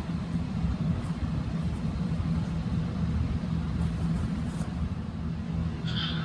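Steady low outdoor rumble with a constant low hum, and a brief high chirp near the end.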